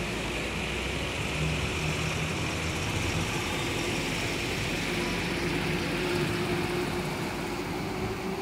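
A motor vehicle running, a steady low engine hum under a broad rushing noise.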